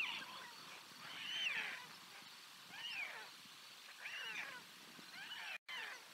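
White stork chicks giving begging calls for food: a series of about five short cries, each rising and then falling in pitch, roughly one every second and a half.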